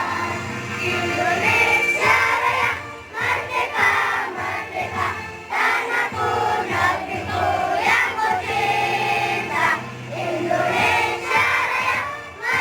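Music: a song with singing voices over a steady low accompaniment.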